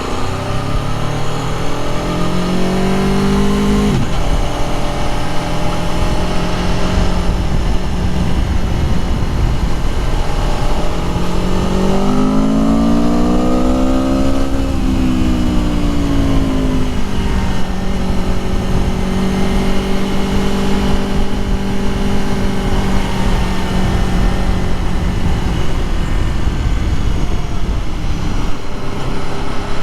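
Aprilia Tuono V4 Factory motorcycle's V4 engine under riding. It climbs in pitch for the first few seconds and drops sharply about four seconds in, rises again mid-way and falls away, then holds a steady cruising note. A constant rush of wind and road noise runs underneath.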